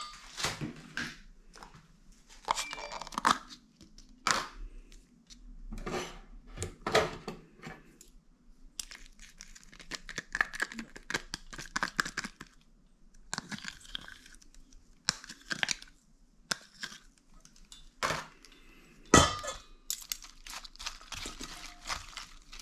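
Intermittent handling noises from salad prep: a plastic dressing cup and packaging crinkling, and metal forks scraping and clinking against a stainless steel bowl as dressing is scraped in and the lettuce is tossed. A couple of sharper knocks come near the end.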